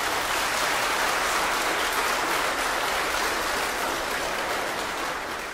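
Concert audience applauding steadily.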